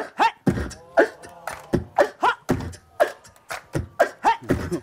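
Beatboxing into a microphone: a regular rhythm of vocal kick-drum thuds and snare clicks with short pitched vocal sounds, about two beats a second, and a burp near the end.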